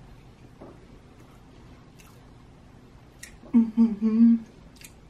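Quiet chewing with a few faint wet mouth clicks, then a woman humming "mmm" with her mouth full in three short pulses, about three and a half seconds in.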